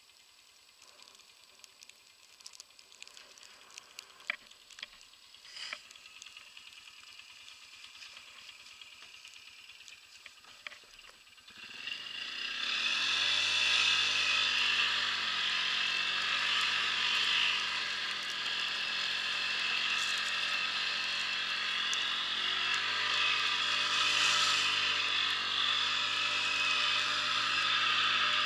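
ATV engine: faint with a few light clicks at first, then about twelve seconds in it comes up loud and runs under load as the quad is ridden through snow, its pitch dipping and rising a couple of times with the throttle.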